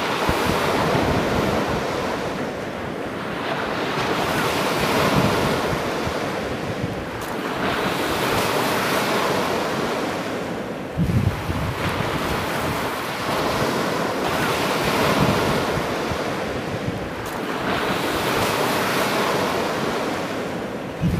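Ocean surf breaking and washing up the shore, swelling and fading every four seconds or so, with a brief low thump about halfway through.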